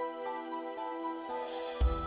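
Instrumental background music with held notes; a deep bass note comes in near the end.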